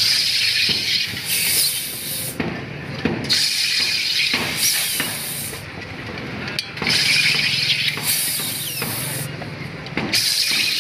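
Carbon dioxide gas hissing from a cylinder's valve into a soda bottle as the water is carbonated. It comes in loud spurts that break off briefly about every three seconds, with a sharp click now and then.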